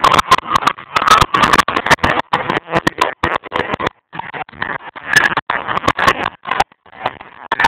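Engines and tyres of cars driving and drifting in a stunt show, recorded so loud that the sound is overloaded into harsh crackling noise. It cuts out briefly about four seconds in and again near seven seconds.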